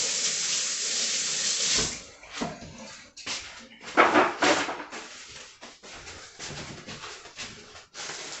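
Kitchen tap running for about two seconds while hands are rinsed, then shut off, followed by scattered rustling and light knocks from hands and kitchen things being handled.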